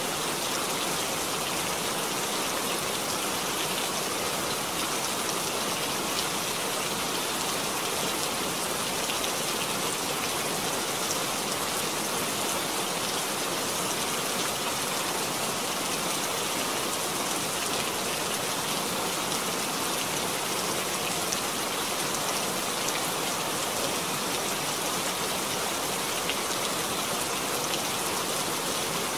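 Steady rain falling, an even hiss made of many small drop impacts that holds at the same strength throughout.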